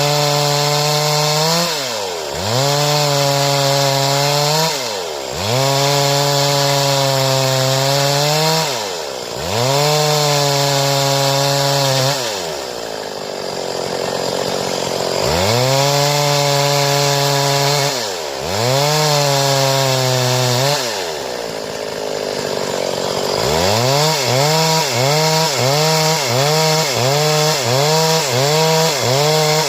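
Stihl chainsaw sawing wood, held at high revs in stretches of two to three seconds, with the engine pitch dropping and climbing back between them. Near the end the revs rise and fall quickly, a couple of times a second.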